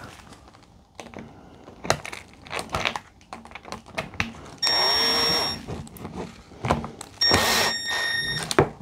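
Cordless screw gun driving screws into a plastic office-chair armrest: two short runs of its motor whining, about five and seven seconds in, the first rising in pitch as it spins up. Light clicks and knocks come before and between them.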